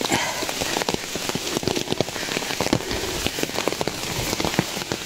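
Heavy rain falling steadily, with many separate drops striking close by.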